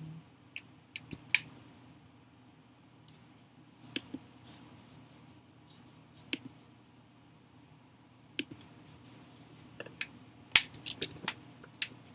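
Sharp, scattered clicks and taps of hands working on a laptop's plastic and metal parts and tools, ending in a quick run of clicks near the end.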